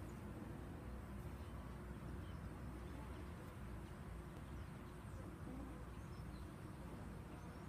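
Faint outdoor ambience: a low steady rumble with a few faint, short bird chirps scattered through it.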